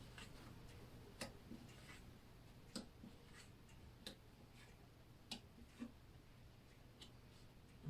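Near silence with faint, irregular light clicks of tarot cards being handled, a second or so apart.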